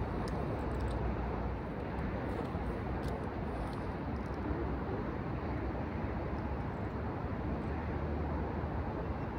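Steady outdoor background noise: an even, low rumbling hiss with no distinct events.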